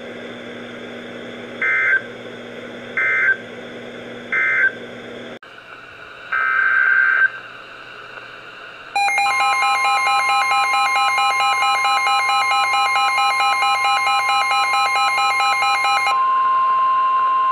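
NOAA Weather Radio emergency alert signals. First come three short screeching data bursts of the end-of-message code. After a cut there is one more data burst, then from about nine seconds in a steady alert tone sounds with a second pulsing tone layered over it. The pulsing tone stops about two-thirds of the way through, and the steady alert tone continues alone.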